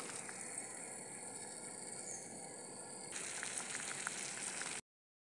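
Sugar syrup with pieces of watermelon rind bubbling and sizzling in a kadhai, with small pops, as the petha finishes cooking. The sound cuts off abruptly near the end.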